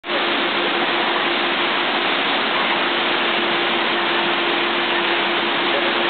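Steady rushing of water pouring from a hot tub waterfall, with a steady hum underneath.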